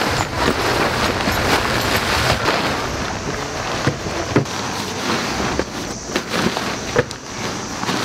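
Nylon tent fabric rustling and crumpling as it is folded and pressed into a bundle, with a few sharp clicks, two of them standing out midway and near the end.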